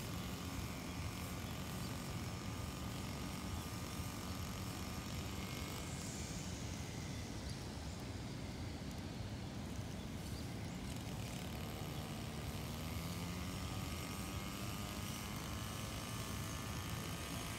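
Brush cutter engine running steadily, its pitch wavering slightly.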